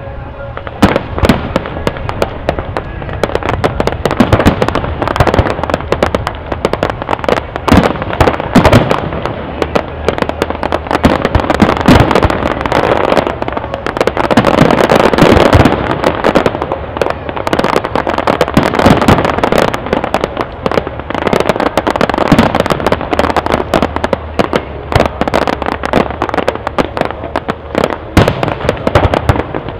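Aerial fireworks display: a continuous barrage of shell bursts and crackling stars, many sharp bangs in quick succession without a pause.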